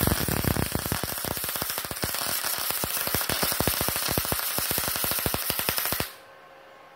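MIG welding arc, solid wire shielded with argon, crackling with a rapid, irregular stream of pops until it stops about six seconds in. The welder judges the voltage too low at this setting (7.5 on the dial, 85 A): the puddle is not melting enough.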